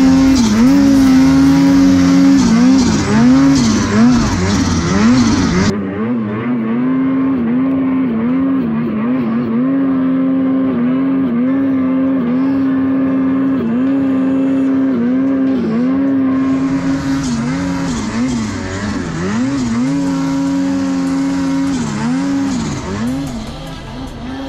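Two-stroke mountain snowmobile engine running hard at high revs, its pitch dipping and climbing again and again as the throttle is worked.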